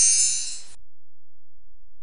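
High, glittering chime sound effect of many bell-like tones, stopping about three-quarters of a second in; the same sound starts again at the very end.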